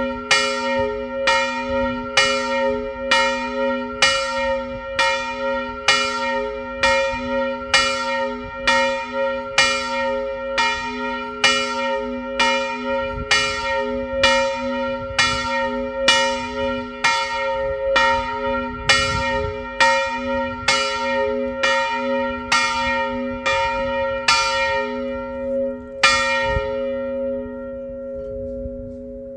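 Large church bell of about 330 kg, cast by Karol Schwabe of Biała in the 1920s, ringing with evenly spaced strokes about once a second over its steady hum. Near the end the strokes soften, one last stroke sounds, and the bell rings out.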